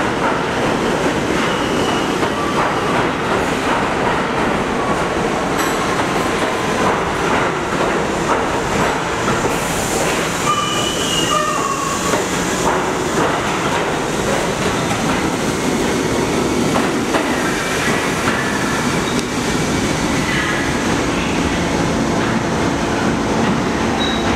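R68 subway train running past the platform of an underground station: a steady loud rumble and clatter of steel wheels on the rails, with a brief wheel squeal about ten seconds in.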